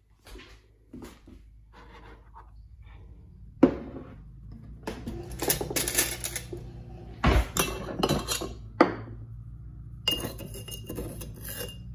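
Cups and dishes clinking and knocking as they are handled on a kitchen counter, in scattered strikes, busiest in the middle, over a steady low hum. Near the end, a short stretch of steady hiss.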